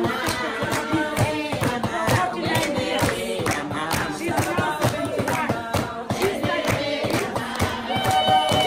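A group singing together to steady hand clapping, about two to three claps a second; near the end one voice holds a long note.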